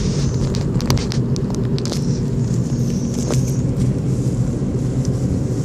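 Steady low rumble inside a car's cabin with the engine running, with a few light clicks and rustles scattered through it.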